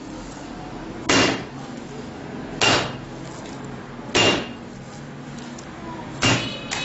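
Soft yeast bun dough slapped down hard by hand onto a stone worktop while being kneaded, four slaps about a second and a half apart.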